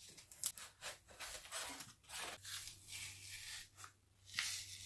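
Cured expanding spray foam being trimmed and torn away along a door jamb by hand: a run of irregular scratchy, crunching strokes, with a faint low hum joining about halfway through.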